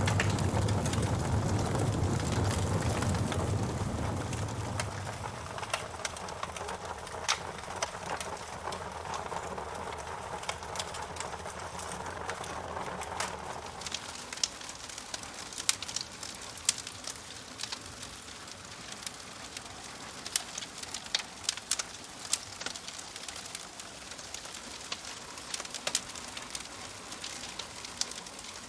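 Wood fire crackling, with frequent sharp pops and snaps over a soft hiss. A low rumble sits under it for the first few seconds and fades away by about five seconds in.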